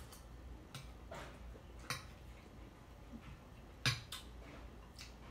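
Eating at a breakfast plate of bacon, grits and biscuits: a handful of short, sharp clicks and taps, the loudest about two seconds and four seconds in.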